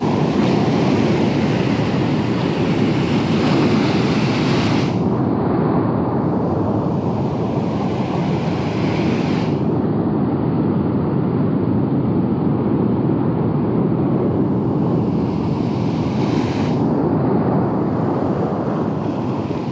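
Ocean surf breaking and washing along the shore, with wind rumbling on the microphone: a loud, steady rush that swells and eases a few times.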